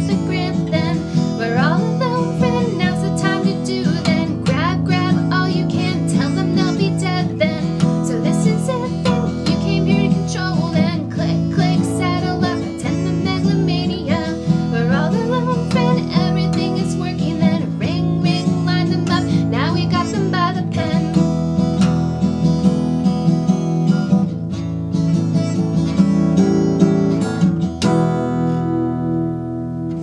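Acoustic guitar strummed in a steady rhythm while a woman sings over it. Near the end the strumming stops and a final chord is left ringing.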